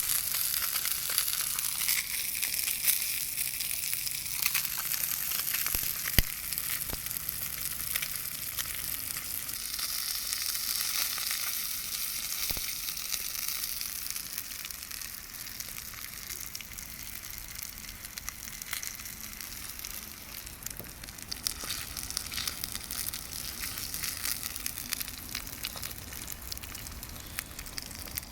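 Salmon belly sizzling and spitting in a frying pan, shallow-frying in its own rendered fat, with a dense hiss of small crackles and a few sharper pops. It slowly gets quieter.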